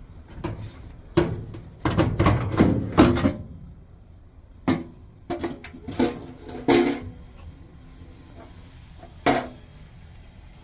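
Irregular clattering and knocks of hard parts and tools being handled, a quick run of them in the first half and a single knock near the end.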